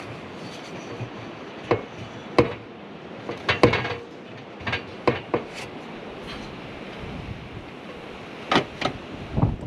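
Irregular sharp knocks and taps of hands and tools working on sheet-metal roofing around a rubber stove-pipe roof boot, about a dozen in all, loudest in a short cluster about three and a half seconds in, over a steady background hiss.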